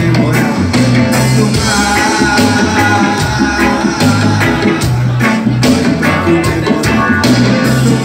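Live reggae band playing, with electric guitars, bass line, drums and keyboard, loud and steady throughout.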